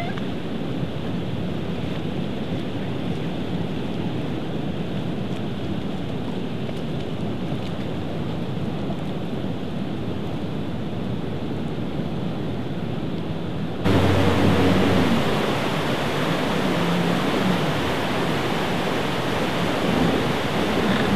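Steady rush of churning white water in a tidal harbour outflow; about fourteen seconds in it jumps to a louder, fuller rush.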